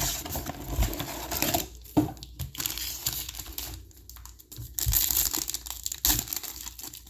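Trading card packaging being opened and handled: crinkling, rustling and tearing of packaging with irregular clicks of cardboard, as a 2021 Panini Chronicles football blaster box and its packs are torn into. The longest stretch of rustling comes about five seconds in.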